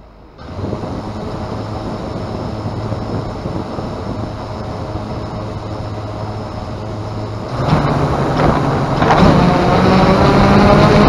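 Drone's 2212 920KV brushless motors with 9-inch propellers spinning at a steady idle after arming, then throttled up about seven and a half seconds in, louder and higher in pitch as it gets ready to lift off.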